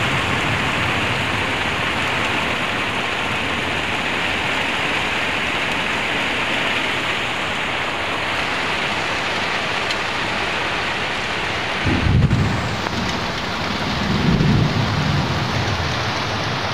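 Heavy rain pouring steadily in a storm, with two short low rumbles near the end.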